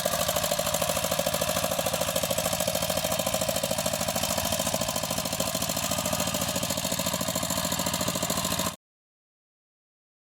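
Walking tractor's engine running steadily with a fast, even chugging beat; the sound cuts off suddenly about three quarters of the way through, leaving dead silence.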